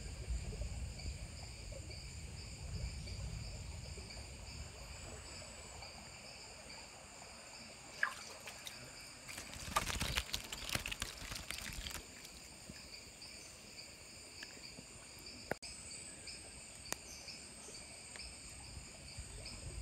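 Steady high-pitched chorus of jungle insects chirring without a break, with a couple of seconds of splashing and rustling handling noise near the middle.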